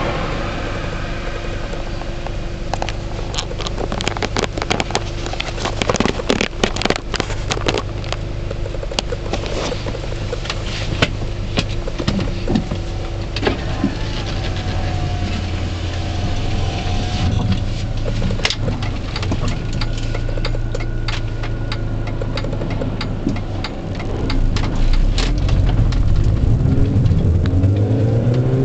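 Supercharged 1.6-litre four-cylinder of a tuned Mini Cooper John Cooper Works, heard from inside the cabin while driving: a steady engine drone with road noise and frequent sharp clicks and rattles. Near the end the engine note climbs and gets louder as the car accelerates.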